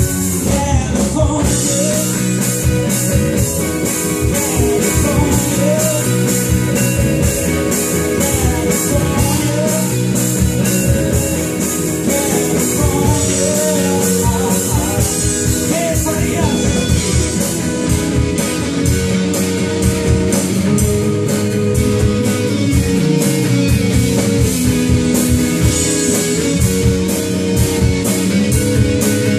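Live rock band playing: two electric guitars, electric bass and drum kit keeping a steady beat, with a sung lead vocal over them.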